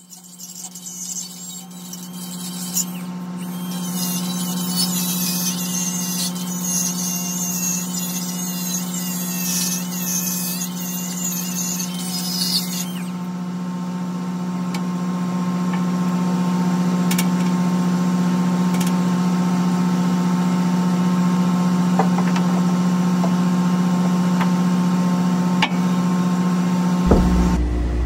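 Cordless die grinder grinding steel around a hole in a scraper apron, its whine wavering under load, for about the first thirteen seconds. Under it a steady engine hum runs on after the grinding stops, changing abruptly near the end.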